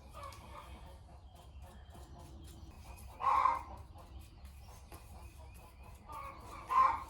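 Two short, loud animal calls about three and a half seconds apart, over a low steady hum.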